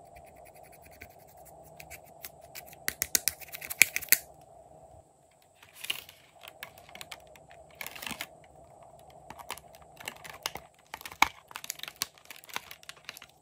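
Plastic spatula scraping pressed eyeshadow out of a palette pan in a quick run of scratchy clicks. Then thin plastic blister packaging crackles and clicks in short bursts as lip-shaped pieces are pressed out of it, over a faint steady hum.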